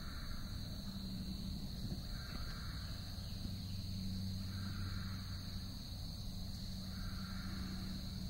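Night-time outdoor ambience: a steady high-pitched insect drone, with a soft animal call repeated about every two seconds and a low steady hum underneath.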